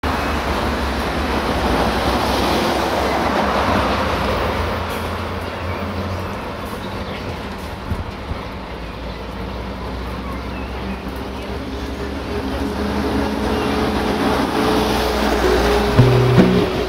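Train running on rails, a steady noise with a low hum and a few clicks about halfway through. Guitar music comes in near the end.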